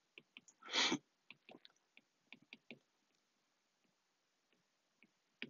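Stylus tip tapping and ticking on an iPad's glass screen as letters are hand-written: light, irregular clicks. One short breath about a second in is the loudest sound.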